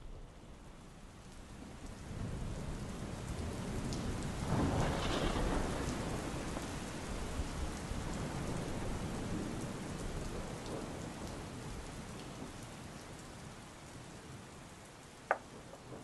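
Rain and thunderstorm sound effect: steady rain fades in, a rumble of thunder swells about four to six seconds in, then the storm slowly dies down. A single sharp tap comes near the end.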